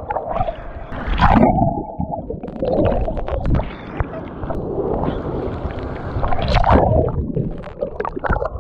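Seawater sloshing and gurgling around a camera held at the surface in ocean surf, with irregular surges as waves wash over it. Twice the sound turns dull and muffled as the camera dips under the water, about a second in and again near the end.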